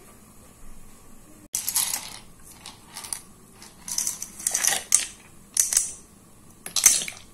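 Dry penne pasta clattering as it is tipped from a small plate into a pan of soup, heard as a string of short rattles and clinks, the longest about four to five seconds in.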